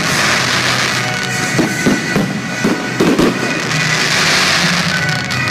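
Fireworks shells bursting into a dense crackle, with several louder bangs between about one and a half and three seconds in, over music.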